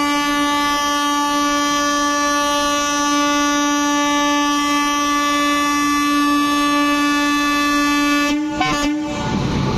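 WAP-7 electric locomotive's air horn sounding one long steady blast at a single pitch, the departure warning before the train moves off. It cuts off about eight seconds in, followed by a short blip and then a steady rush of noise.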